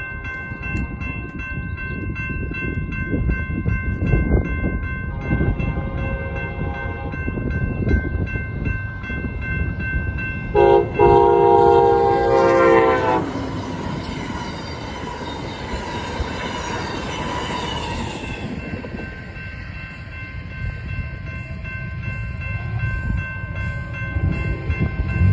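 Railroad crossing bell ringing steadily while a passing Amtrak San Joaquin passenger train sounds its multi-note horn: a fainter blast about five seconds in, then a loud blast of about two seconds starting about ten seconds in. After the horn, the rushing and rumbling of the train passing through the crossing carries on for several seconds.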